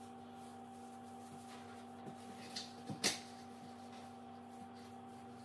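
A few light knocks and rustles as an artificial evergreen wreath is handled and hung on a wooden kitchen cabinet door, the loudest knock about three seconds in, over a steady low hum.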